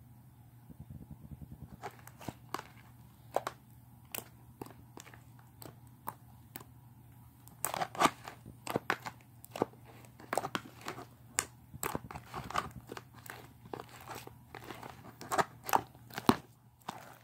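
Slime being kneaded and stretched by hand, giving irregular crackling clicks and pops: sparse at first, coming thick and fast from about halfway.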